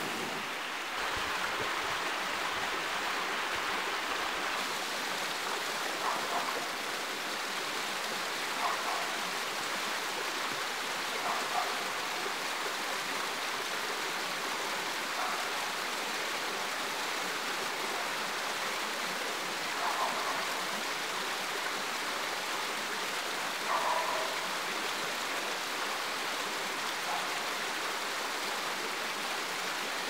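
Mountain stream running over rocks: a steady rushing of water, with a brief higher sound every few seconds.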